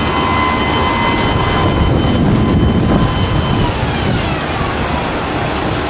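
Winery crush-pad machinery running loudly and steadily while the grape press is being filled, with a motor whine that drops in pitch about four seconds in.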